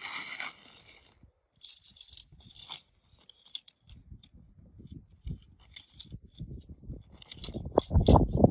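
Shock-corded tent pole sections clicking and knocking as they are unfolded and snapped together, with rustling of the tent bag and fabric. A low rumbling noise builds from about halfway and is loudest near the end.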